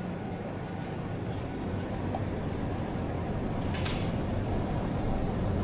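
City street ambience: a steady low rumble of traffic that grows slowly louder, with a brief high clatter about four seconds in.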